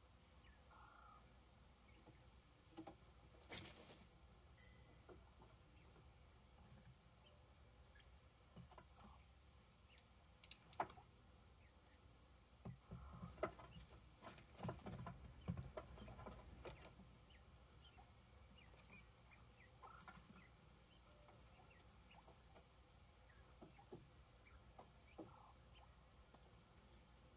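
Quail at night: faint scattered scratching and scuffling, busiest for a few seconds around the middle, with a few short soft calls.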